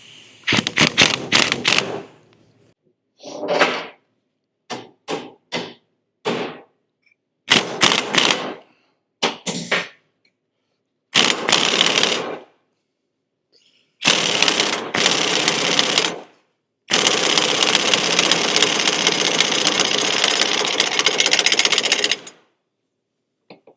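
Impact wrench hammering on a hub puller's forcing screw to pull the hub off a Dana 44 tapered rear axle, in a series of short stop-start bursts that grow longer, the last running about five seconds. The hub is stuck tight on the axle taper.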